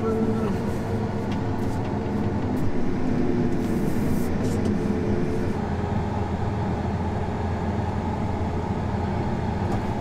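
John Deere combine's diesel engine running steadily while it is used to lift a draper head off its head cart.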